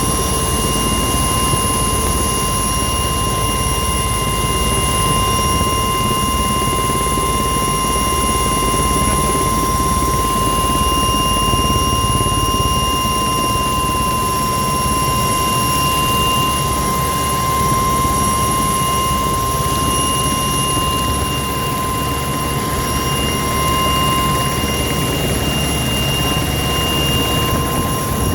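Aircraft in flight: a steady motor and rotor whine of several held high tones over a low, rushing rumble.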